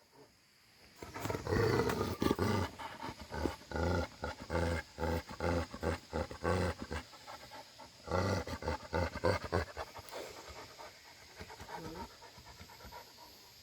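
Bhote Kukur livestock guardian dog growling in a series of short pulses, several a second, with a pause in the middle, then fading near the end: the dog is angry at people coming close.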